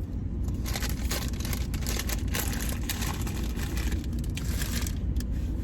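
A car's steady low rumble heard from inside the cabin, with irregular crackling and rustling over it that dies away about five seconds in.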